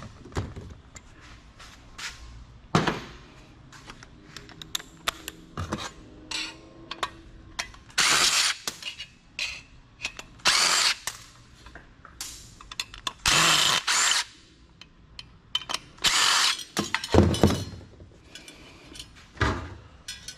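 Clicks, knocks and clatter of metal computer parts being handled and thrown into a bin, with about four louder rasping bursts of under a second each.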